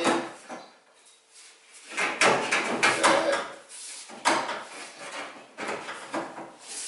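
Steel repair panel sliding and scraping against the body of a 1973 VW Bay Window campervan below the rear side window as it is offered up for fitting: several scraping strokes with short pauses between them.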